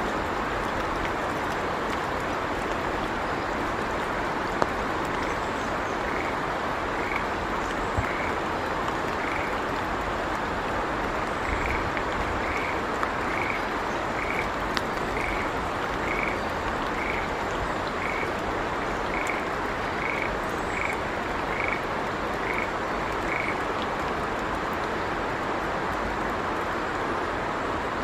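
A frog calling a long, even series of short notes, about four every three seconds, starting about five seconds in and stopping a few seconds before the end, over a steady background hiss.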